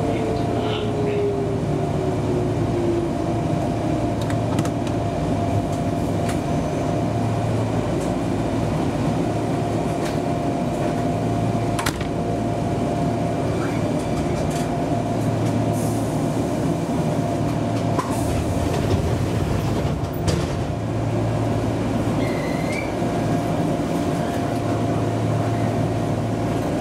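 Enshu Railway electric commuter train running, heard from on board: steady rolling noise of wheels on rail with a constant motor hum. A motor whine drops in pitch over the first few seconds, and a few sharp clicks come from the track.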